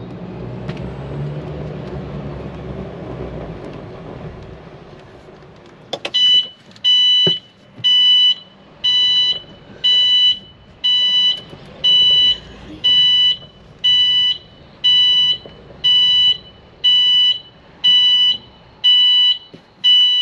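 Icon I60L electric golf cart rolling along, its running noise fading as it slows. About six seconds in, its reverse warning beeper starts: a high beep about half a second long, repeating about once a second, the sign that the cart is backing up.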